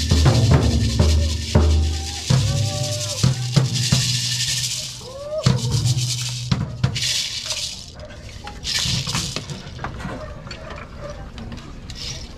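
Danza dancers' hand rattles (sonajas) shaking in several separate bursts. A large drum beats through the first few seconds, then fades out.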